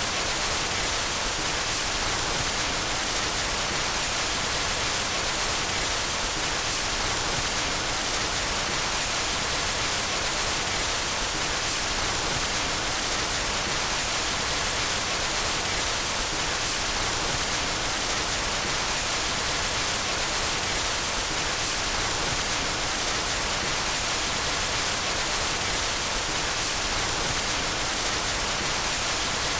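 Steady white noise: an even, unbroken hiss, strongest in the highs, with no change in level.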